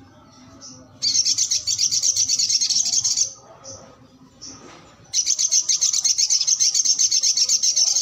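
Caged sogok ontong sunbird singing: two long, loud, high-pitched fast trills of about two to three seconds each, the first about a second in and the second from about halfway, with a few short chirps between.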